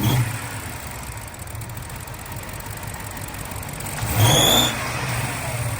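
BMW E60 550i's 4.8-litre V8 idling slightly unevenly with a single-cylinder misfire, from a failed ignition coil on cylinder 5. About four seconds in there is a brief louder burst with a high whistle.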